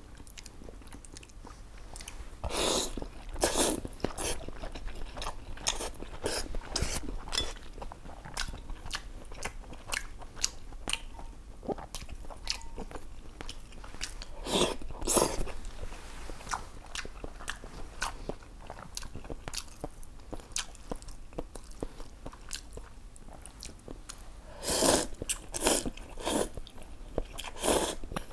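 Close-miked eating of noodles in broth: steady small chewing and lip clicks, with a few louder slurps about three seconds in, around fifteen seconds, and several more near the end.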